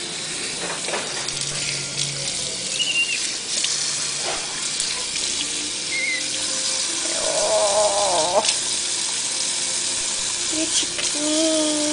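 Kitchen sink faucet running steadily, water splashing into the basin as a baby monkey is rinsed under it.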